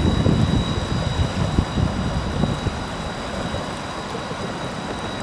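Wind buffeting the microphone: a gusty low rumble, strongest in the first couple of seconds, then easing a little. A faint steady high whine runs under it.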